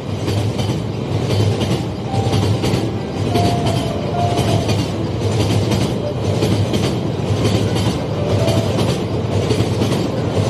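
Electric model freight train rolling past on its track. The wheels click in a steady rhythm over the rail joints over a continuous running rumble.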